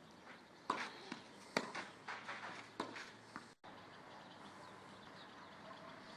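Tennis ball being hit and bouncing: a quick run of sharp pops, the two loudest about a second apart near the start, followed by lighter knocks that stop about halfway through.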